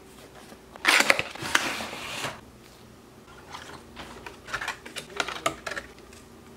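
Model train packaging being handled: a loud rustling scrape about a second in as the clear plastic tray is slid out of its cardboard box, then a run of light plastic clicks and crackles as the clamshell is opened and the car is lifted out.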